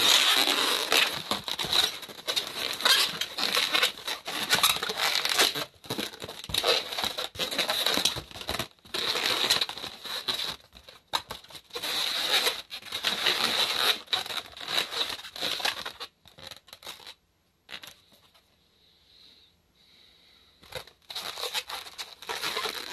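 Inflated latex modelling balloons rubbing against each other and against the hands as they are twisted and pressed into place, in long rustling bursts with short pauses. It falls quiet for a few seconds about three quarters of the way through, then picks up again.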